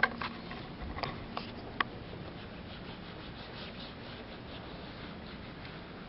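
A hand rubbing and smearing paint across a stretched canvas in soft, repeated scuffing strokes, after a few sharp knocks and clicks in the first two seconds.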